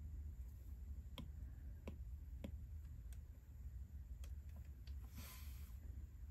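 Stylus tapping on an iPad screen: scattered light clicks at irregular intervals, with a short hiss about five seconds in.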